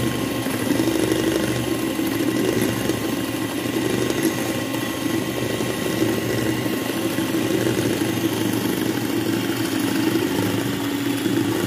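Philips electric hand mixer running steadily, its twin beaters whisking thin cake batter in a glass bowl.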